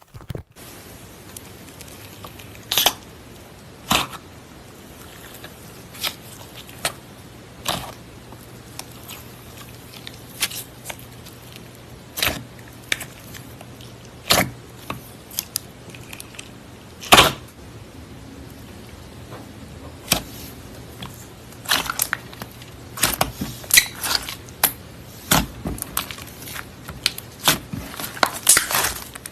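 Slime being handled: sharp pops and crackles come one at a time at first, then crowd together near the end, over a steady faint hiss.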